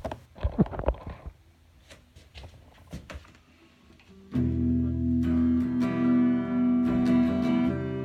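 A few knocks and clicks, then about four seconds in a guitar starts playing: a chord rings out and fresh notes are picked and strummed over it.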